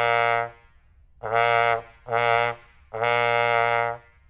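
Trombone playing the same low note, C, four times with clean tongued attacks: a held note that ends about half a second in, two short notes, then a longer held note.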